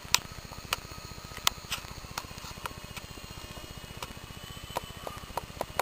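Blade mSR micro RC helicopter in flight: a fast, even flutter from the spinning rotor with a faint motor whine, broken by sharp clicks at irregular intervals.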